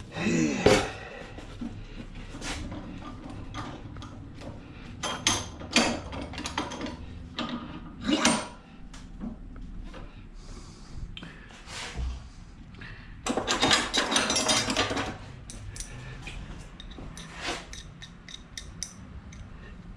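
Hand-tool work on metal scrap to free small brass pieces: scattered clicks, clanks and scraping, with a longer rattling, scraping stretch of about a second and a half about 13 seconds in.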